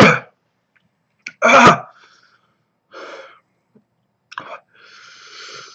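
A man's pained breathing and vocal reactions to the burn of a freshly eaten ghost chili pepper: a sharp outburst of breath at the start, a louder one with some voice in it about a second and a half in, a softer breath, then a long hissing breath near the end.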